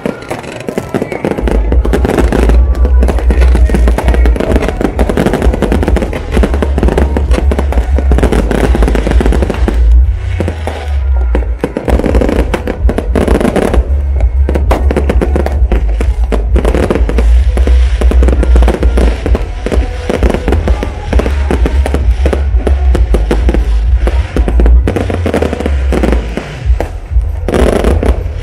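Aerial fireworks bursting in a dense, rapid barrage of bangs and crackles over a deep low rumble, with music playing along.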